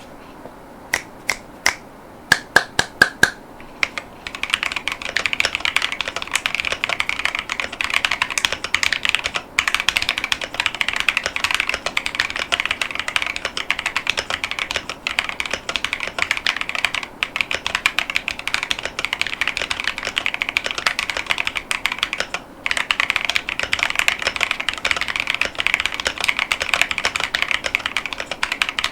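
Mechanical keyboard with Leobog Ice Soul 30gf tactile switches and XVX PBT keycaps being typed on: a handful of separate key presses at first, then fast continuous typing about four seconds in, with a few brief pauses.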